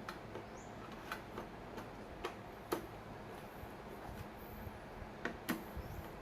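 Irregular light clicks and taps, a few each second at most, from small server parts being handled while a CPU heatsink is fitted.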